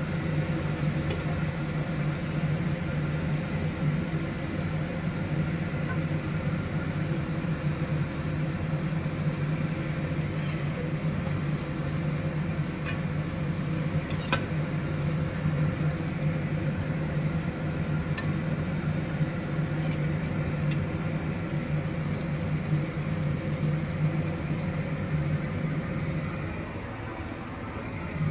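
Puris frying in hot oil in a kadhai: a steady sizzle with occasional faint pops, over a constant low hum from a kitchen appliance motor, which dips briefly near the end.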